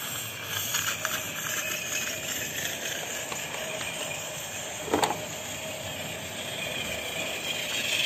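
Märklin BR 89 live-steam model tank locomotive moving off under steam and running with its train: a steady hiss of steam and the rattle of wheels on the rails, with one brief knock about five seconds in.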